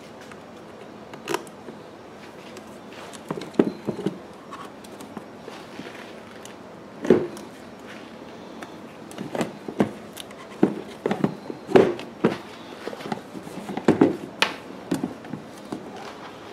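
Scattered clicks, taps and knocks of hands handling a Powerhorse 7500i generator's control panel and its wiring. They come irregularly, a few at first and then more often in the second half.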